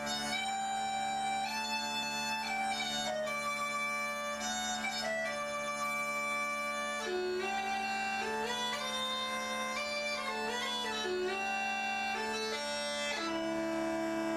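Bagpipe music: a melody of held notes over a steady, unbroken drone.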